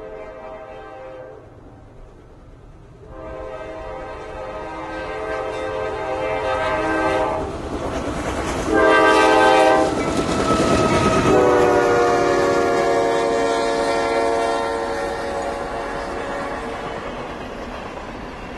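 Diesel freight locomotive's air horn blowing the grade-crossing signal, long, long, short, long, as the CSX-led container train passes. The final long blast drops in pitch as the locomotive goes by. The rumble and rail clatter of the train grow under the horn.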